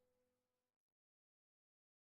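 Digital silence, after the last faint tail of fading background music dies away in the first half second.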